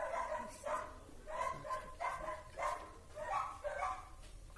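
A dog barking over and over, about seven barks at an even pace.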